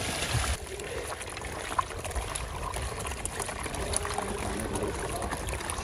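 Water poured from a plastic bottle splashing into a basin of water as raw beef is rinsed; the pouring cuts off abruptly under a second in. Then quieter wet handling with small scattered clicks as raw beef intestines are rubbed by hand in a plastic bowl.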